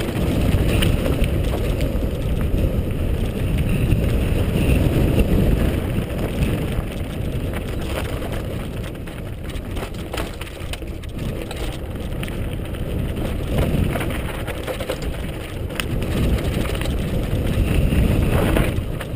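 Mountain bike riding fast down a loose rocky gravel track: tyres crunching and rattling over stones, with many sharp clicks and knocks, and wind buffeting the camera microphone.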